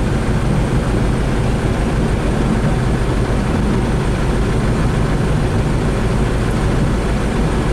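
Heavy diesel engine running steadily, a low, even drone with no clear revving or impacts.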